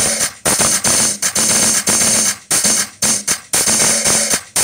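Loud music with a choppy beat played through a large PA system of stacked loudspeaker cabinets during a sound check, the mid frequencies being tuned.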